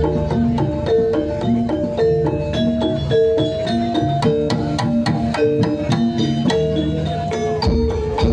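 Gamelan accompaniment for a jaranan hobby-horse dance: struck metallophones play short ringing notes in a quick, even, repeating pattern over sharp percussion strokes.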